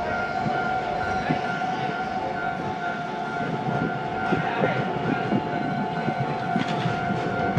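A Japanese level-crossing warning bell rings steadily while an Iyo Railway city tram approaches slowly over the points. Its wheels knock and rumble on the rails, growing louder near the end.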